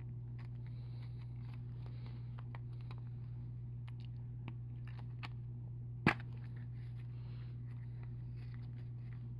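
Hands straining at the tight lid of a plastic coin tube, faint rubbing and small clicks over a steady low hum, then one sharp snap about six seconds in as the lid pops free.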